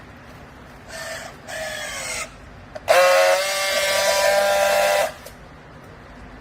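A horn-like pitched tone sounds two short blasts, the second falling slightly in pitch, then one loud, steady blast of about two seconds.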